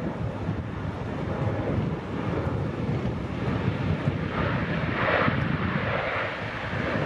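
Lockheed C-130J Hercules flying past low, the drone of its four turboprop engines and propellers swelling about four seconds in. Wind rumbles on the microphone underneath.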